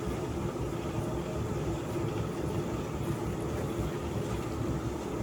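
Steady low machine hum with a faint constant tone, holding level without change.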